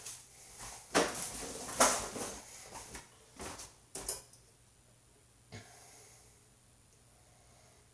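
Cookware and a drawer being handled while a pan is got out: a run of short clattering, scraping bursts, the loudest about a second in and again just before two seconds, a few more around three and a half to four seconds, and a single click a little after five seconds.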